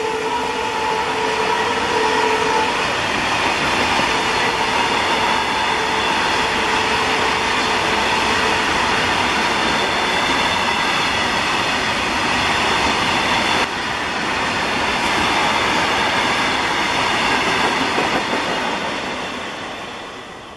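A long freight train of hopper wagons rolling past at speed: a steady rush and clatter of steel wheels on rail, with a tone that fades out in the first few seconds. The noise dies away near the end as the last wagons pass.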